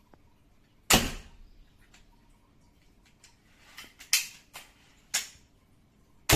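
A series of sharp knocks or snaps: a loud one about a second in, smaller ones in the middle, and another loud one at the very end, each dying away quickly in a small room.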